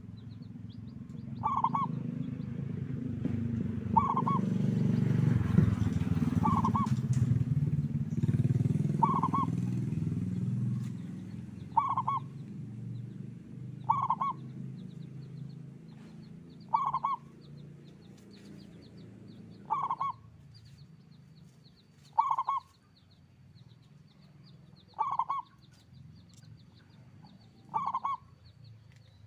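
Zebra dove (perkutut) cooing: one short call repeated about every two and a half seconds, about eleven times. A low rumble swells under the first half and fades away.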